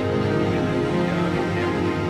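Background music: a documentary score of held, sustained tones.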